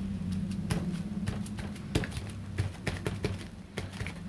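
A crumpled paper tissue dabbed again and again on a wet painted board, giving a run of soft, irregular taps over a low steady hum. The dabbing lifts wet paint off the dots to reveal the layer beneath.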